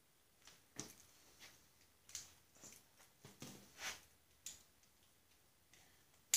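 Faint, irregular small clicks and scrapes of hands fitting bolts and handling metal parts on a Snapper riding mower's gas tank mount, with one sharp click at the very end.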